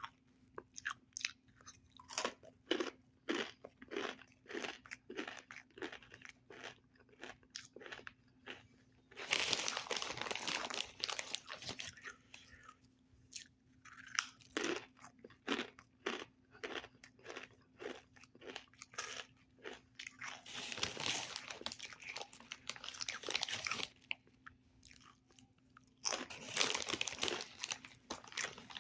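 Close-up crunching and chewing of Takis rolled tortilla chips: a quick run of sharp crunches, with a few longer spells of denser, continuous crunching.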